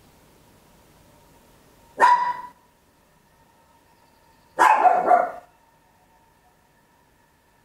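Papillon, a tiny toy-breed dog, barking loudly: one sharp bark about two seconds in, then a quick double bark around five seconds in, with quiet between.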